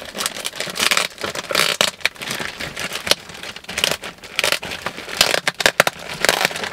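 A plastic mailer bag crinkling and crackling in the hands as it is opened, in quick irregular bursts.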